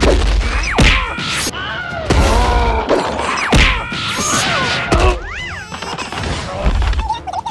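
Cartoon fight sound effects: a run of crashes and thuds about every second, with sliding, squealing pitch glides between them, over background music.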